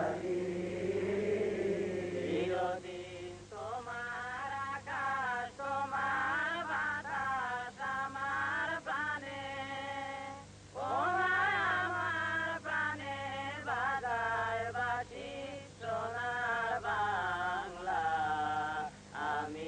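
Chant-like singing by a voice that glides through phrases, with a brief pause about halfway through, over a steady hum.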